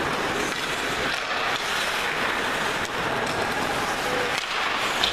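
Steady din of an ice hockey game in play, with skates on the ice and a few sharp clacks of sticks on the puck, one of them near the end.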